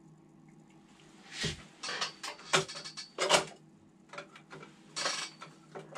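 Light clicks and clacks of hands handling a large-scale model car, working at its doors: a string of short knocks of uneven loudness, starting about a second and a half in.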